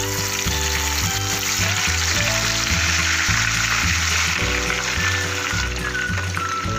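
Marinated chicken pieces frying in hot oil in a pan, a dense steady sizzle, over background music with a steady bass beat.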